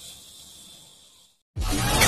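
A faint high hiss fading away, a moment of silence, then loud electronic music with a heavy beat cutting in suddenly about one and a half seconds in.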